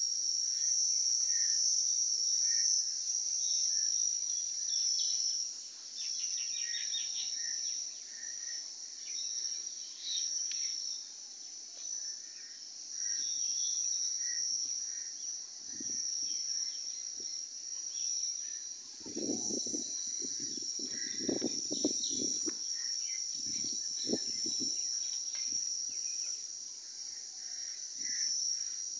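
A steady, high-pitched insect chorus drones throughout, with scattered small bird chirps over it. About two-thirds of the way through, a short run of low, muffled knocks or rustles sounds close by.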